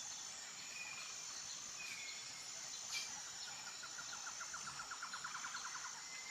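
Faint nature ambience: a steady high-pitched insect drone, with a few short bird chirps and, in the second half, a rapid trill of about ten pulses a second.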